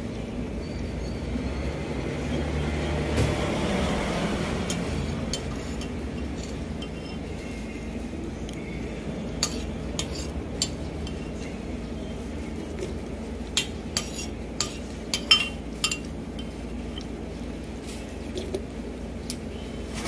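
Steady low street traffic noise, swelling and fading in the first few seconds, with a scatter of sharp metallic clinks in the second half, several in quick succession near the end.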